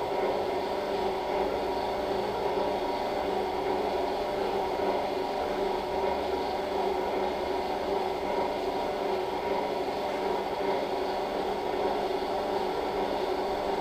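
Steady hum of operating-room equipment, an even noise holding several constant tones, with no change in level.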